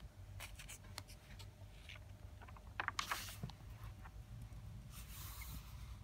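Faint handling noise of a paper notebook: scattered small ticks, then a brief paper rustle about three seconds in and a softer one near the end, as the pages are shifted and turned.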